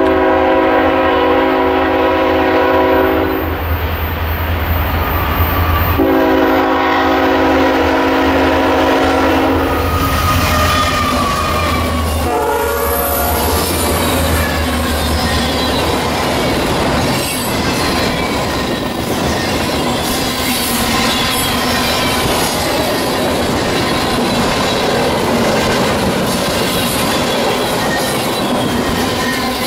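CN ET44AC's Nathan K5HL air horn sounding two long blasts over the rumble of the approaching diesel locomotives. The locomotives pass, and the freight cars roll by with clickety-clack and high wheel squeal.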